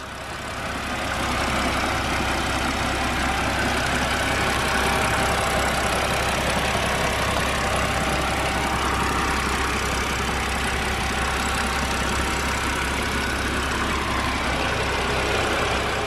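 BMW N52 3.0-litre straight-six idling steadily, fading in over the first second or two. After being held at about 3000 RPM to bleed the oil from the hydraulic lifters, the lifter tick has pretty much completely gone, and the only ticking left is from the injectors.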